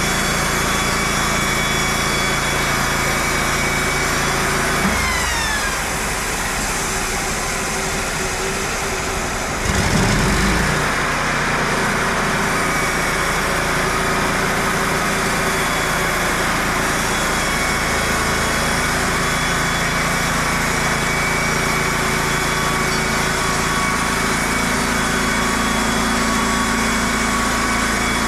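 Wood-Mizer LT15 Wide portable bandsaw mill running steadily on its engine. About five seconds in the engine note falls away, and near ten seconds it picks up again and gets louder.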